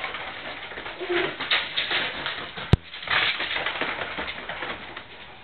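Mastiff puppies running and scrabbling on a hard kitchen floor: irregular patter and clicks of paws and claws, with a few short low animal noises. A single sharp click a little past halfway is the loudest sound.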